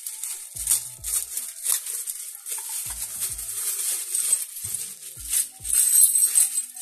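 Clear plastic pouch crinkling as it is opened and handled, with small loose electronic parts clinking and rattling inside. A few dull low thumps come in between.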